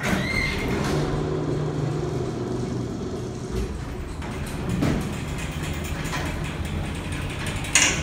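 Elevator car levelling into its floor with a steady mechanical hum from the drive, then its doors opening, with a sharp clunk near the end.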